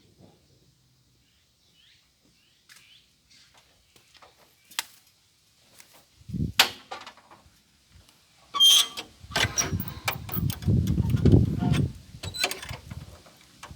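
A Eurasian nuthatch moving about its nest inside a mailbox: sharp taps and scratches, then from about two-thirds in, louder knocks over close, dense rustling of nesting material.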